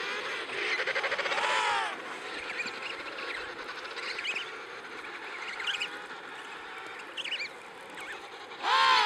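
Emperor penguins calling in a colony. A loud, drawn-out adult call comes about a second in and another near the end, with shorter, higher calls from other birds in between.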